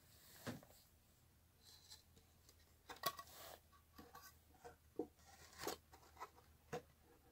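Scattered sharp clicks and knocks as a pneumatic nail gun and wooden birdhouse parts are handled and fitted together. Two or three of the clicks are followed by a short hiss.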